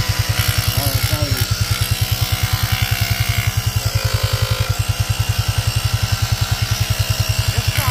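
Slime portable tire inflator's small electric air compressor running with a loud, fast, even pulsing, working to inflate a flat ATV tire.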